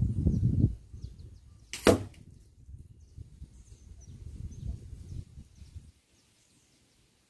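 Wind buffeting the microphone as a low, uneven rumble that dies away near the end, with one sharp knock about two seconds in and faint bird chirps.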